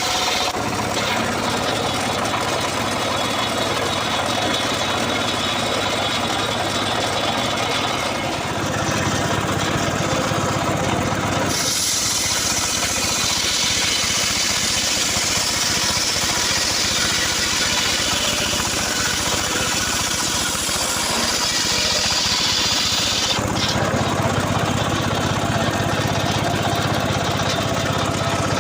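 Engine-driven saw cutting wood: the engine runs steadily, then about twelve seconds in a loud hissing cutting noise joins it for roughly ten seconds before it drops back to the engine alone.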